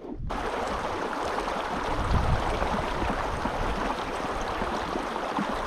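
Shallow mountain stream rushing and gurgling over rocks close by, a steady noisy wash that starts abruptly a moment in.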